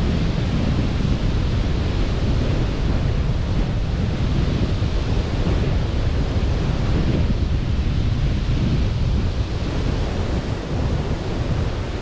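Sea surf rushing steadily, with wind buffeting the microphone.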